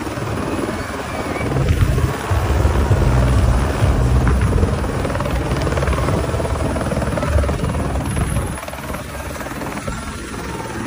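Light helicopter landing close by: a continuous rotor beat and engine noise as it descends and settles on its skids, easing a little in the last few seconds.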